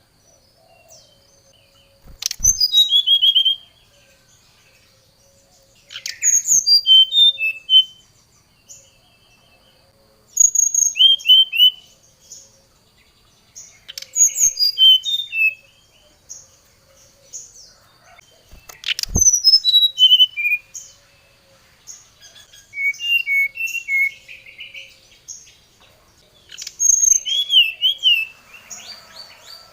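Brown-chested jungle flycatcher singing: phrases of high, quick whistled notes that slide downward, repeated about every four seconds. Two sharp knocks are heard, one about two seconds in and one about two-thirds of the way through.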